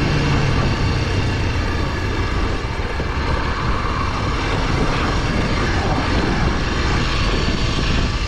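Honda NX 250's single-cylinder four-stroke engine running steadily while riding off-road, with wind noise rushing over the microphone.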